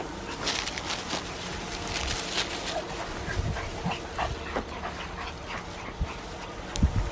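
Puppies giving short, high whimpers and squeaks while they play around an adult dog, over rustling in the grass. A couple of low bumps near the end.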